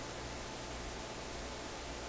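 Steady hiss with a low, steady hum underneath: background room tone, with no distinct event.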